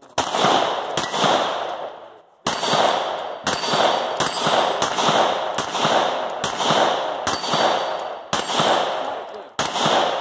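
A fast string of pistol shots at steel plate targets, about two a second with a short break about two seconds in, each shot followed by the clang of the struck steel ringing.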